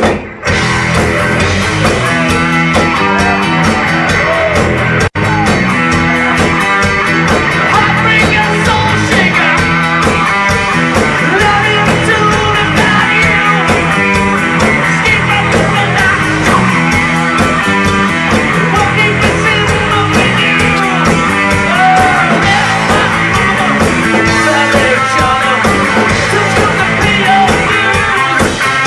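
Rock band music with guitar and a steady drum beat, loud throughout, with a brief dropout about five seconds in.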